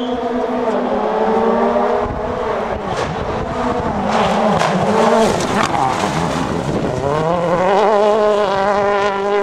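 Rally car engine at high revs. The pitch falls as the car slows, with a few sharp pops, then climbs again about three-quarters of the way in as it accelerates away.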